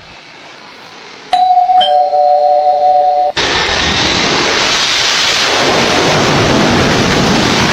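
Two-tone ding-dong doorbell chime: a click, then a higher note followed half a second later by a lower note, both ringing on together for about two seconds and then stopping. Right after it, a loud steady rushing noise takes over.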